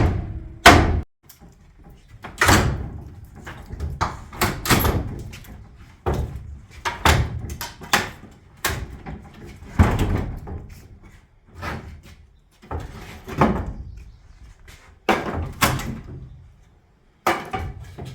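Demolition work: irregular heavy bangs and thuds, about one a second, as wooden framing and boards are knocked and torn apart.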